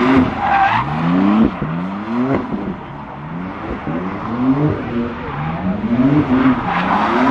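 Car engine revved hard again and again while drifting, its pitch climbing and falling back about once a second, over continuous tyre noise.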